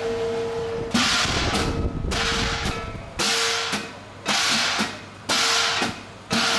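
Chinese drum and cymbals accompanying a qilin dance. After a steady ringing tone in the first second, the cymbals crash about once a second, each crash ringing and dying away, with drumbeats underneath.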